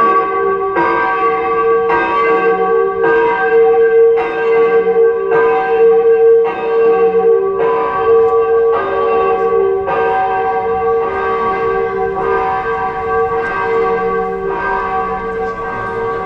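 Large bell tolling steadily, struck about once a second, each stroke ringing on into the next with a deep hum.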